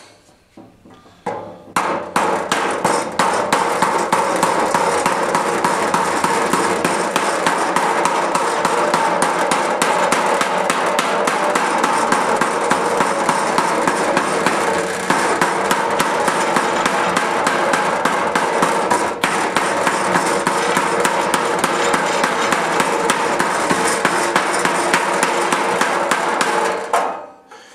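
Hammer beating rapidly and steadily on a hand-held louver tool, punching a louver into a steel sheet-metal splash pan. The metal is heavier than 22 gauge. The blows start about two seconds in and stop just before the end.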